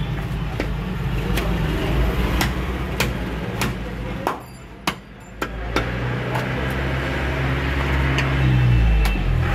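Heavy butcher's cleaver chopping goat meat on a wooden log block: a string of sharp chops, roughly one every half second to a second, with a pause of about two seconds near the end. A steady low engine rumble from road traffic runs underneath, growing louder near the end.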